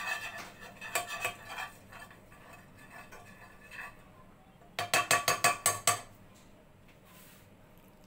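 Spatula scraping and knocking against a nonstick frying pan as butter is stirred round to melt. Just past halfway comes a quick run of about eight loud clinks in a second.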